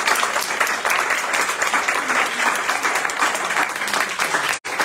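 Audience applauding: a dense patter of many hands clapping. It cuts out for a split second near the end.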